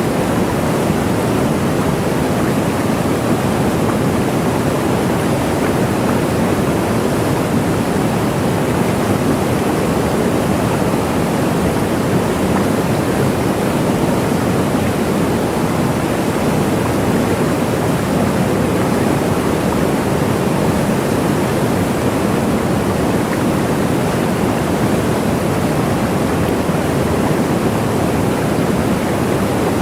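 Waterfall: a steady, unbroken rush of falling water, even and without breaks.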